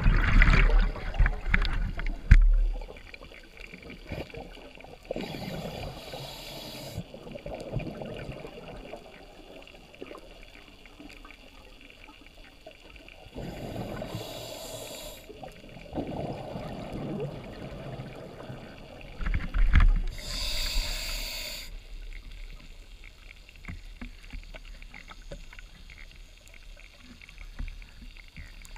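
A scuba diver breathing through a regulator underwater, heard from the diver's own camera: exhaled bubbles rush out in three long bursts several seconds apart, with quieter water rumble between them. Loud water noise and a few knocks against the camera housing come in the first couple of seconds.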